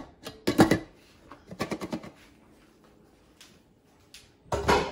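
Stainless steel cooking pot and its glass lid clattering as they are handled: a few sharp clinks and knocks, then a louder knock near the end as the pot is set down on the gas hob.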